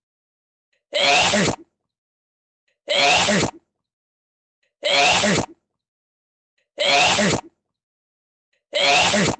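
A person sneezing five times, about every two seconds, with dead silence between. Each sneeze is identical, the same recorded sneeze played over and over in a loop.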